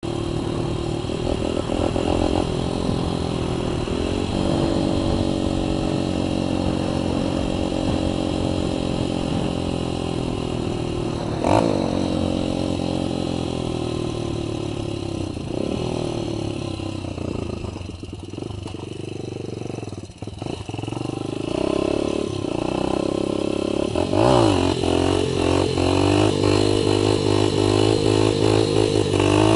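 Honda CRF100F dirt bike's small single-cylinder four-stroke engine running under way, its pitch rising and falling as the throttle is worked. A little past the middle it eases off and drops low for a few seconds, then revs up again and runs higher and louder near the end.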